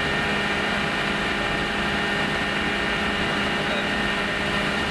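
Steady drone of running woodworking machinery: an even hiss with several steady tones held throughout, unchanging in level.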